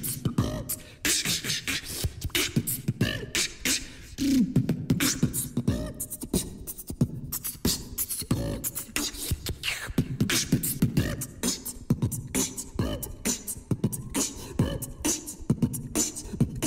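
Dance music with sharp percussive hits in a fast beat and vocal lines over it, the track for a swing team routine.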